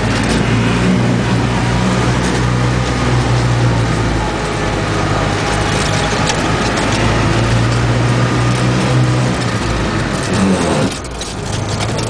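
Engine and cabin noise of a Russian van driving off-road, heard from inside: a steady engine drone over road noise, with knocks and rattles from the rough track. The sound drops off briefly near the end, then picks up again.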